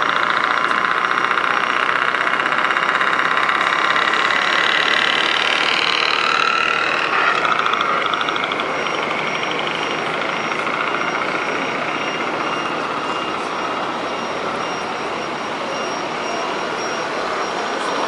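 Diesel truck engine sounds from radio-controlled model trucks' sound modules, a steady buzzing mix heard through small speakers, thin in the bass. It eases off a little after about eight seconds, and a faint high-pitched pulsing beep runs through the second half.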